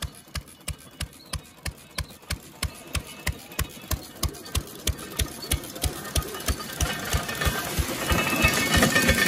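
Single-cylinder stationary gas engine with twin flywheels chugging steadily about three times a second, belted to an antique wooden farm machine. From about six seconds in, a rising rattle from the belt-driven machine grows under the engine beats.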